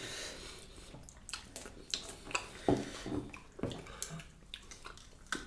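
Eating sounds of pork back bone soup: wet slurping and chewing, with scattered small clicks of utensils against the dishes.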